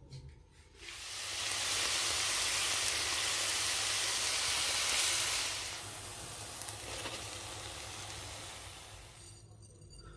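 Churro dough sticks frying in hot oil in a pan, sizzling loudly from about a second in. The sizzle drops to a softer level about six seconds in and dies away near the end.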